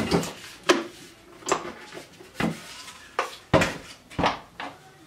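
A spatula knocking and scraping against the stainless-steel bowl of a Monsieur Cuisine food processor while soft dough is scraped out into a dish. About eight clattering strokes with a short ring, roughly one a second and closer together near the end.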